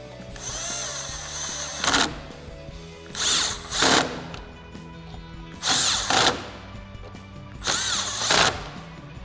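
Cordless power driver with an 8 mm socket on an extension, running screws into the top of the radiator support. It goes in about five short bursts, the motor's whine rising and falling as it spins up and slows, over background music.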